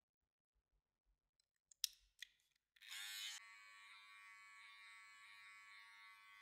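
A few sharp clicks of handling, then a barber's electric clipper switches on about three seconds in and runs with a steady hum.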